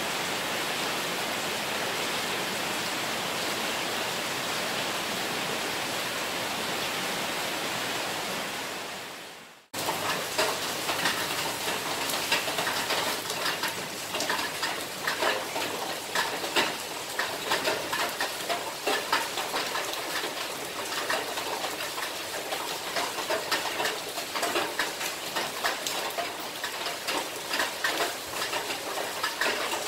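Steady rain falling as an even hiss. After a cut about ten seconds in, the rain is heard with many sharp, irregular nearby drips and splashes.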